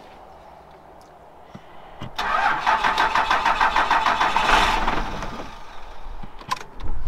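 1997 Dodge Ram pickup's 5.9-litre Cummins diesel cranking on the starter for about two seconds, then firing and running on its own. This is its first start after sitting about five years.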